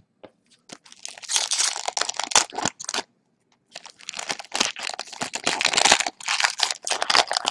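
Foil hockey card pack wrapper crinkling and tearing as it is ripped open by hand, in two long stretches of rustling with a short pause about three seconds in.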